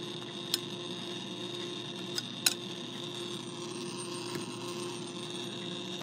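Edison Model D phonograph spring motor running on its wound spring, a steady whir from the spinning governor and gear train with a few light clicks. It runs smoothly after its cleaning and the repair of a cracked pinion, a pretty good running motor.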